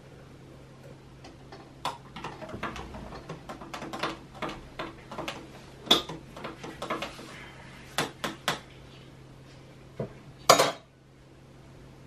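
Metal pots, lids and utensils clinking and knocking as they are handled and set down on a kitchen counter, a scatter of sharp clinks over several seconds. A brief louder burst of noise comes about ten and a half seconds in, over a faint steady low hum.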